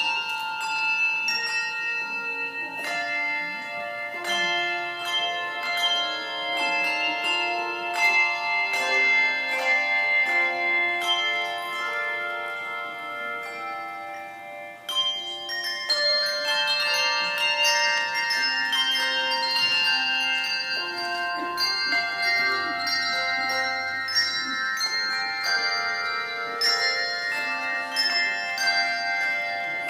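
Handbell choir playing a piece: many tuned hand bells struck and left ringing in overlapping chords. About halfway through there is a brief lull, then the playing comes back in fuller and louder.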